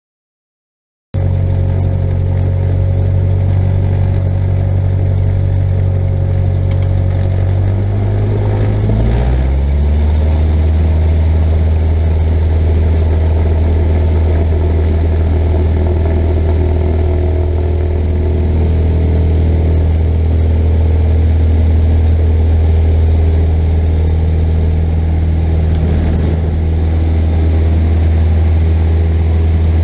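Cessna 172's piston engine and propeller, heard from inside the cockpit, cutting in abruptly about a second in and running steadily. About eight seconds in the engine note rises as the throttle is opened to full power for the takeoff roll, then holds steady.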